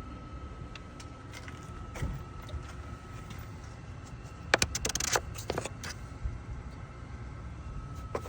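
BMW N20 2.0-litre turbocharged four-cylinder running hot, a steady hum with a thin steady whine and light scattered clicking, with a cluster of sharp metallic clicks and rattles about halfway through. The clicking and metallic noise is what the owner takes for a worn timing chain due for replacement.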